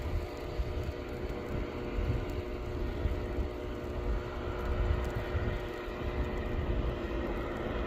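A motor vehicle's engine running steadily: a low rumble under a hum of several steady tones, with a hiss of wind or road noise.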